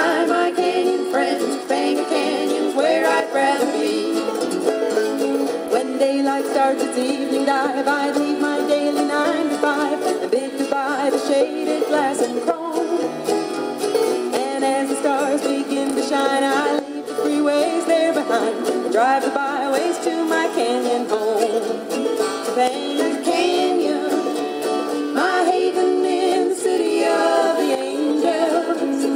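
Music played from a vinyl LP on the Panasonic SG-J500L boombox's pop-out belt-drive turntable, heard through the set's own speakers: a steady, thin sound with almost no bass.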